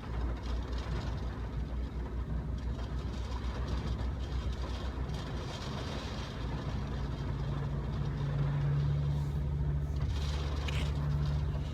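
Steady low rumble of a car interior in slow traffic, with engine and road noise and a low hum that comes in and grows about halfway through.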